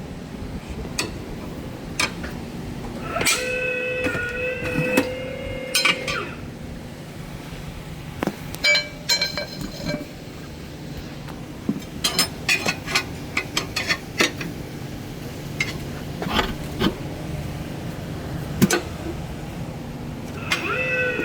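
Metal tools clinking and clattering against a car wheel rim, with many sharp irregular knocks, and a steady pitched whine from about three to six seconds in.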